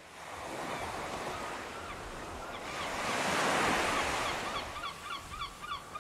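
Waves washing, swelling to a peak midway and easing off, with a bird giving a quick series of short, repeated cries, about three a second, in the second half.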